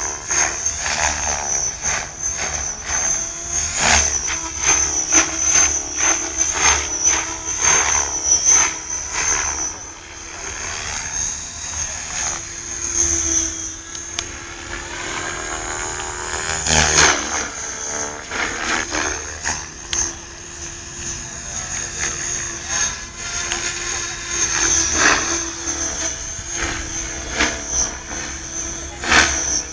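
Radio-controlled 3D helicopter flying aerobatics overhead. It gives a steady high, slightly wavering whine broken by many short sharp swishes, with a louder swell about seventeen seconds in.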